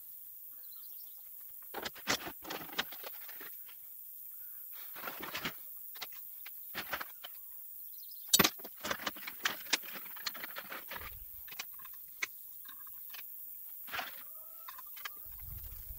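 Scattered clicks, light knocks and rustling from office-chair parts, plastic packaging and a paper instruction sheet being handled during assembly, with the sharpest click about eight seconds in.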